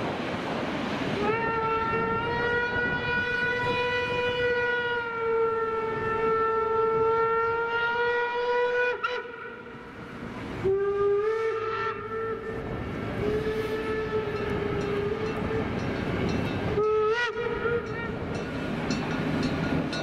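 Steam locomotive whistle blown three times: a long blast of about eight seconds, a second of about six seconds, and a short one near the end, over the noise of the train rolling by.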